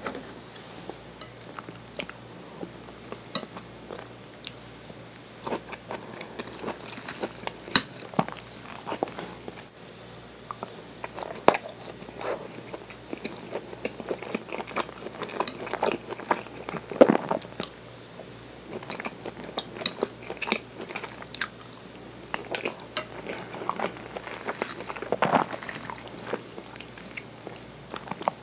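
Close-miked chewing and biting of okonomiyaki (cabbage-and-pork pancake), with wet mouth sounds and irregular clicks of chopsticks cutting pieces off on the plate.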